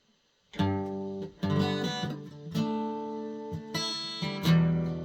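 McPherson Sable carbon-fibre acoustic guitar strumming chords through its pickup, starting about half a second in, with the chord changing roughly every second.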